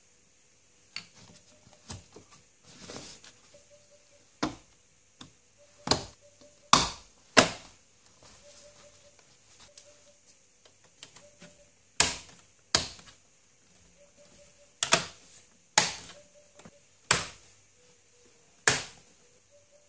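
Irregular sharp plastic clicks and knocks, about ten loud ones among fainter ones, from a VW Golf VI's car radio and its dashboard trim surround being screwed back and pressed into place.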